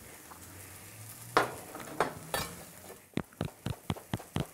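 Faint steady sizzle of diced sweet potato frying in a pan, with a few knocks, then about three seconds in a chef's knife starts chopping parboiled spinach on a plastic cutting board, quick even strokes about four a second.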